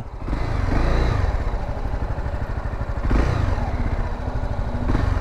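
Honda Sahara 300's single-cylinder engine running under throttle as the bike rides off, rising in pitch in the first second and again after a brief knock about three seconds in.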